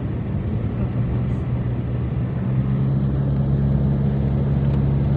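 Motor vehicle engine running with steady road noise; its low hum grows louder about halfway through.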